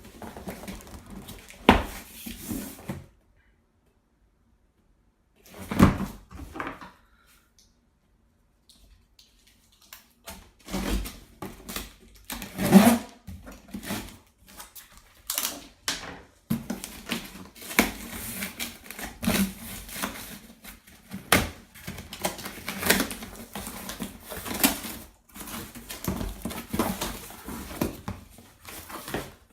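Cardboard box and packing being opened and handled during a window-fan unboxing: rustling and scraping with frequent knocks and clicks, broken by two short stretches of dead silence in the first ten seconds.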